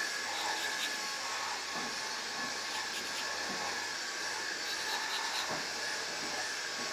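A steady machine-like hiss with a faint high whine runs throughout. Faint scratches of a pencil on paper come and go over it.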